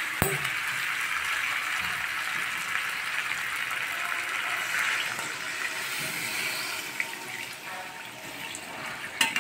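Water poured from a metal vessel into a karahi of fried-down chicken and potatoes to make the gravy: a steady splashing pour that tapers off after about six seconds. A sharp knock as the pour begins and a couple of clicks near the end.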